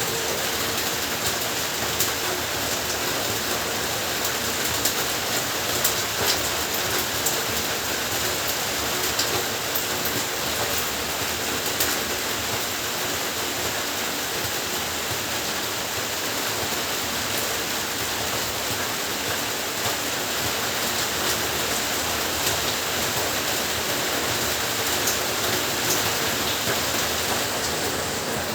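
Heavy rain falling steadily, a dense even hiss with scattered sharper drop hits.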